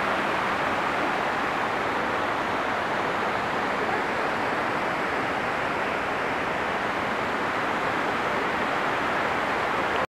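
Steady rushing of a mountain stream pouring over rocks, an even hiss with no let-up.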